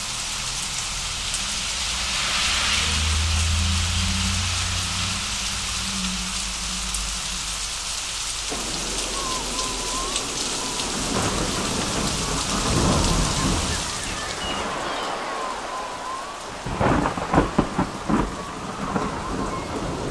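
Heavy rain falling steadily in a thunderstorm, with a low rumble of thunder a few seconds in and several sharp cracks of thunder near the end.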